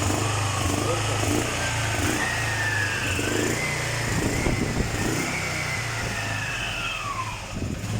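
Quad bike engine running with a steady low hum, with a whine above it that rises and falls in pitch over several seconds and drops away near the end.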